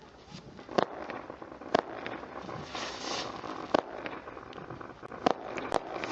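Silver Cyclone 16-shot consumer firework cake going off: five sharp bangs at uneven spacing, with crackling and hissing between them.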